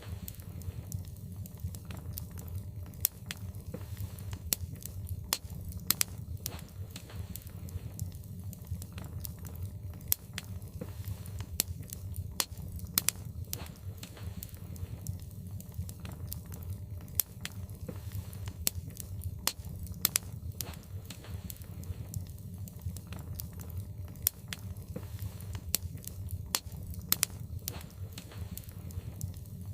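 Wood fire burning in a fireplace: logs crackling with sharp, irregular pops, several a second, over a steady low rumble.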